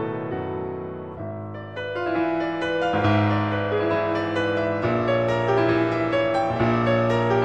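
Background piano music, sustained chords and melody notes changing every second or so, growing louder about two seconds in.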